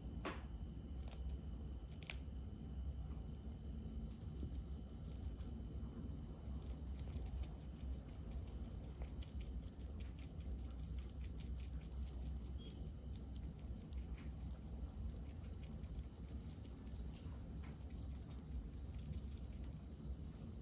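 Sugar glider nibbling and chewing small bits of food: a run of faint, crisp clicks over a steady low hum, with one sharper click about two seconds in.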